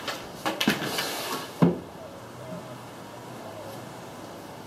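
Handling a metal straight edge on a sheet of plywood: a few clicks and a scrape lasting about a second, ending in one sharp knock, then quiet room sound.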